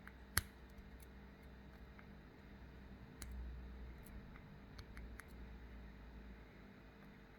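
Faint metallic clicks and ticks as a pick works the pins of a SAG 5-pin tubular padlock held under tension. There is one sharper click about half a second in, and a low handling rumble in the middle.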